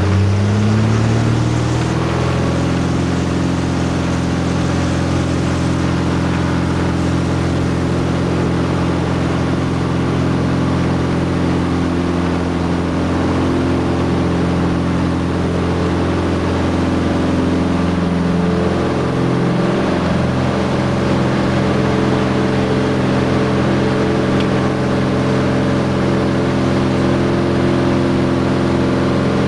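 Light propeller aircraft's engine heard inside the cabin, rising in pitch over the first second or two as power comes up for the takeoff roll, then running steadily at one pitch through lift-off and climb.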